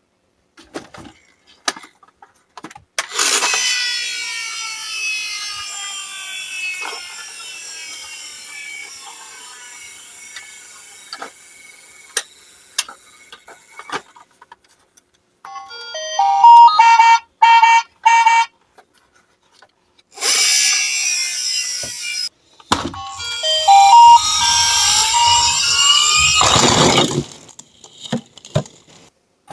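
Toy ambulances' electronic sound units sounding siren tones in separate bursts, the clearest a pulsed run of beeping tones midway and another tonal burst near the end, with clicks and knocks of the toy cars being handled in between.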